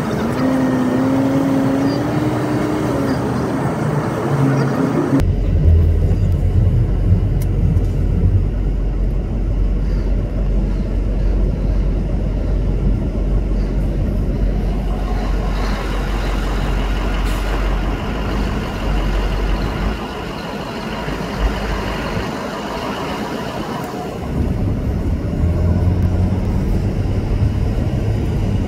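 Motor vehicle driving on a road: engine and road noise. A pitch rises over the first few seconds, then the sound changes abruptly about five seconds in to a deep, steady rumble that eases off for a few seconds in the second half.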